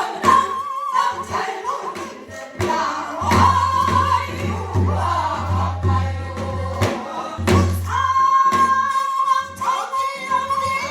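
Korean Namdo folk song sung with a wide, shaking vibrato, accompanied by repeated drum strokes.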